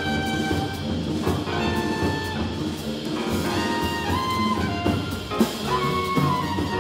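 Jazz quartet playing live: trumpet carrying the melody in held notes over piano, double bass and drum kit with cymbals.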